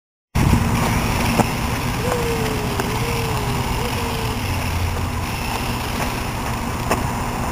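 A small remote-control toy car drives across asphalt under a steady noise, with a faint wavering whine between about two and four seconds in.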